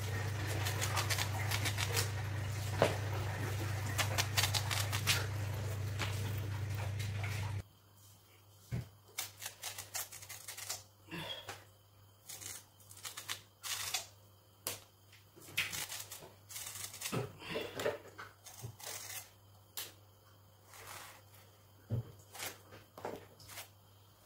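Bottle gourd being peeled and cut on a boti, a curved floor-mounted blade: short scraping and slicing strokes at irregular intervals. A steady low hum sits under the first eight seconds and cuts off suddenly.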